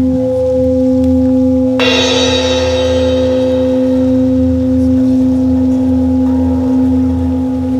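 A suspended cymbal struck once with a mallet about two seconds in, ringing out and slowly fading, over a steady low drone.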